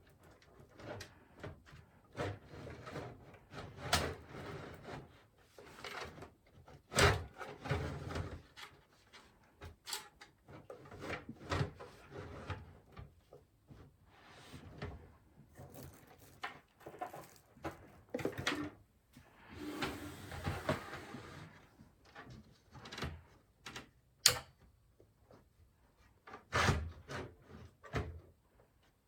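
Hands installing a power supply in a PC case: irregular clicks, knocks and scrapes of parts and cables being handled, with a sharp knock about 7 seconds in and another near the end, and a longer scrape or rustle about 20 seconds in.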